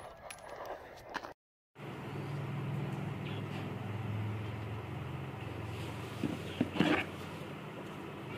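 Steady low hum in a small room, with a few light clicks and knocks near the end as a polymer Glock 19X pistol is picked up off its hard plastic case.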